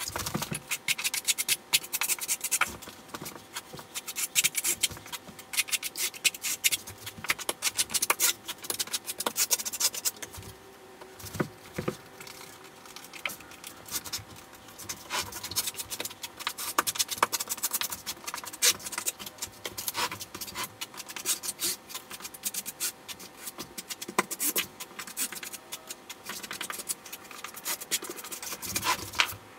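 Trowel scraping and rubbing thinset mortar into Schluter Ditra uncoupling membrane, a rapid run of scrapes and clicks, sped up by the time lapse.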